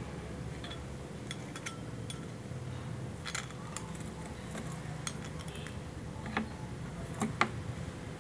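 Light metallic clicks and clinks, scattered and irregular, as a coiled steel watch mainspring is handled and rubbed in a cloth, with one sharper click a little past seven seconds in. A steady low hum runs underneath.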